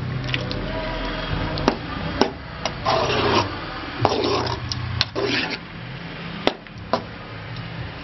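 Perforated metal spatula scraping and tossing cooked rice around a metal kadai, with about six sharp clinks where it strikes the pan. The rice is being mixed into the lemon-rice tempering.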